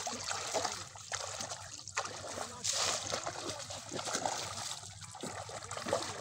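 Shallow water splashing and trickling as a woven bamboo scoop net is pushed and lifted through the water by a man wading at a muddy bank, with a few louder splashes.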